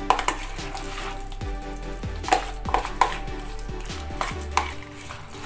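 A utensil stirring a soft, sticky chopped mixture in a plastic tub, with irregular clicks and scrapes as it knocks against the plastic sides.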